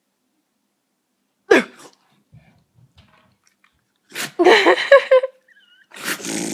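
Beagle sneezing and snorting in a fit of what the owner calls reverse hiccuping: one sharp sneeze about a second and a half in, then a run of louder snorts from about four seconds in.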